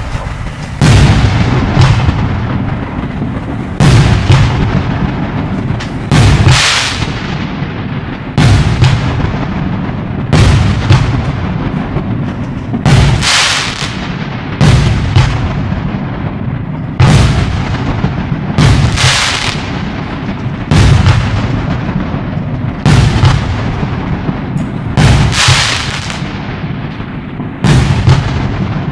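A 'Taurus' fireworks battery (cake) firing aerial shells one after another, a loud bang about every two seconds. Each bang fades away in a trailing echo.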